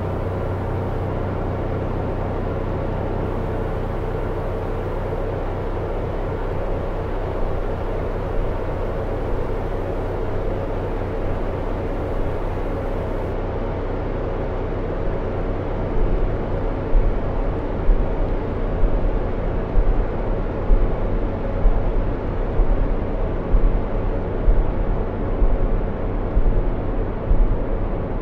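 A low, steady droning rumble made of many held tones. About halfway through, deep pulses start to throb in it, roughly every three-quarters of a second.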